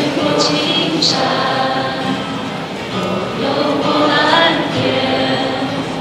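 A woman singing a song in Mandarin into a microphone while playing an acoustic guitar, with long held notes.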